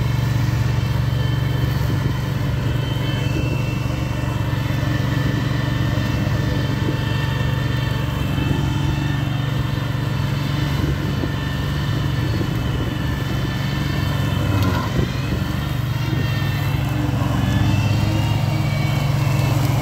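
Engine of a remote-controlled mower running steadily at working speed while its blades cut through tall grass, a constant hum with a slight waver around three quarters of the way through.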